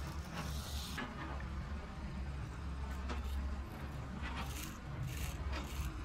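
Small plastic toy digger pushed by hand through sand and small pebbles: a series of short scrapes and gritty crunches, over a low steady hum.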